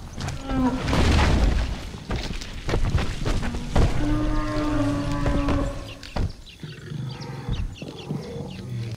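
Dubbed-in animal sound effects: a deep growl about a second in, then one long, held bellow, and a few sharp knocks near the end.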